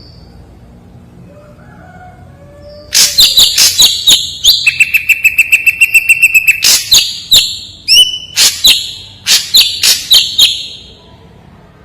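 Ashy drongo singing loudly after a short pause: sharp, clear notes in quick runs, a fast string of ticks over a held whistle, and a rising note, for about seven seconds before it stops.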